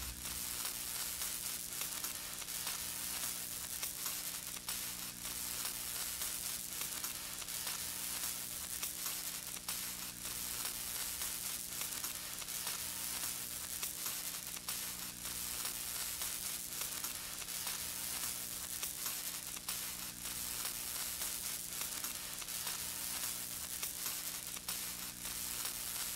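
Steady crackling static with a low electrical hum underneath, unchanging throughout.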